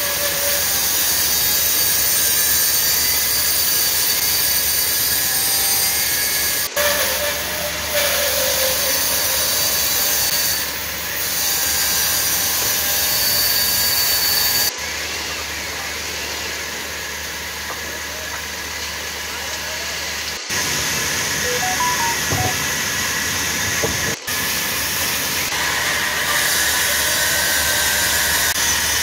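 Large vertical band saw running and cutting lengthwise through a log: a steady hissing whir of the blade in the wood. The level shifts abruptly a few times.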